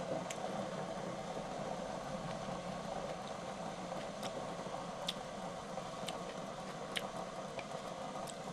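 Eating sounds: quiet chewing of hot-pot vegetables close to the microphone, with a few scattered sharp clicks, over a steady low hum.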